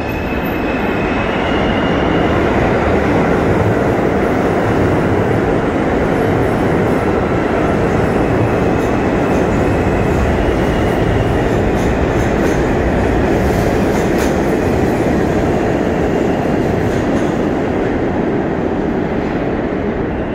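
R160 subway train pulling out of the station and running past at close range, its wheels and motors making a loud, steady noise. The noise builds over the first two seconds, holds, and eases slightly near the end as the last cars go by.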